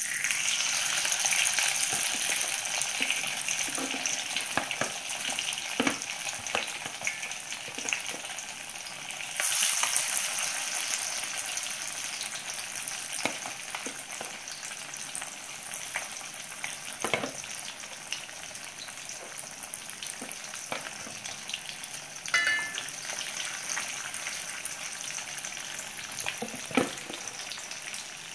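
Masala-coated sardines frying in hot oil in a kadai: a dense sizzle that jumps up as fish are slid into the oil at the start and again about ten seconds in, then slowly settles, with scattered pops of spitting oil.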